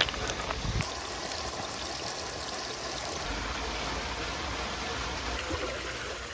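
A stream flowing: a steady rush of running water.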